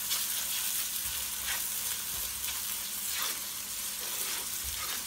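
Chopped onion, green chillies and garlic-ginger paste sizzling steadily in hot oil in a wok while a spatula stirs them, scraping the pan about once a second. The paste is being fried to cook off its raw smell.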